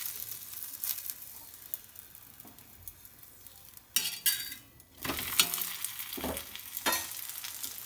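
Gobhi paratha sizzling in oil on a tawa while a steel spoon scrapes across it, spreading the oil. About four seconds in, a spatula scrapes in and turns the paratha over, and from about a second later the sizzling is louder, with a few knocks of the spatula on the pan.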